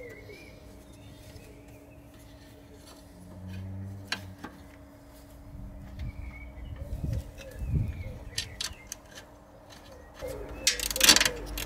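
Quiet hand work fitting a new suspension height sensor: small clicks and a few low knocks of the plastic sensor and its bolt being handled and positioned, with a brief louder rattle near the end. Faint birdsong chirps in the background.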